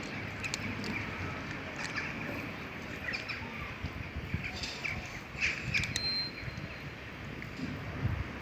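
Outdoor ambience with a steady hiss, scattered short high chirps and clicks, and a brief high whistle-like tone near the end.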